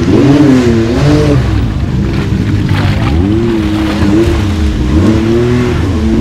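Side-by-side UTV engine revving up and down, its pitch rising and falling several times as the throttle is worked.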